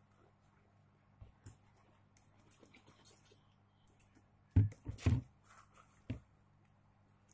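Light handling sounds: scattered soft clicks and rustles, with a cluster of dull thumps a little past halfway and one more about a second later.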